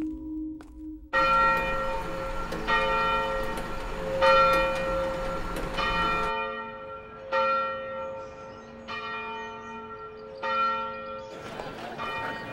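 A large bell tolling, struck about every second and a half, eight strokes, each ringing on into the next: the market-opening bell. Before the first stroke a soft held tone plays, and the noise of a market crowd comes in near the end.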